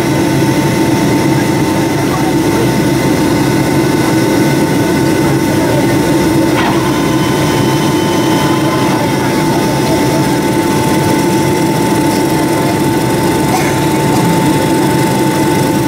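Steady roar of a Boeing 757-204's jet engines and rushing airflow, heard inside the cabin in flight, with a steady high whine running through it.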